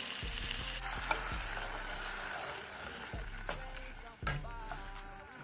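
Food sizzling and frying in a pan, with a utensil clicking against the pan now and then and one louder knock about four seconds in.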